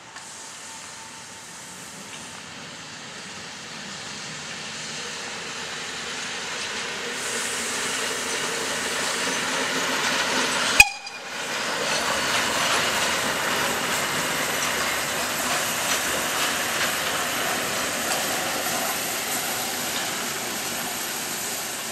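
Steam locomotive moving along the track, its running and rail noise growing steadily louder as it approaches. About 11 seconds in there is a sharp click, and after it comes a steady mix of running noise and steam hiss.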